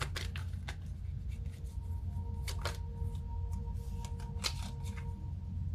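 Tarot cards being handled and shuffled by hand: a scattering of light clicks and snaps of card stock over a steady low hum.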